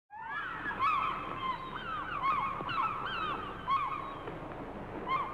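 A flock of gulls calling, many short calls with bending pitch overlapping one another over a steady background hiss; the sound cuts in suddenly right at the start.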